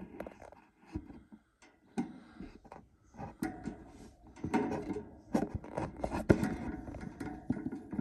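Irregular taps, scrapes and rustles of a budgie moving about in its nest box over its eggs, getting busier about halfway through.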